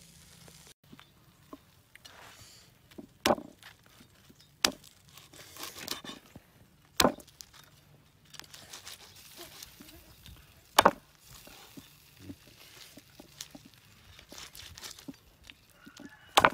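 A heavy meat cleaver chopping grilled duck on a wooden chopping block. There are five hard, sharp chops a few seconds apart, with quieter knocks and rustling in between.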